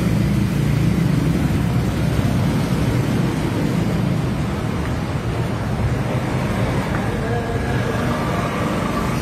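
Road traffic: vehicles passing on the road, a steady low rumble that is loudest over the first few seconds and eases a little after that.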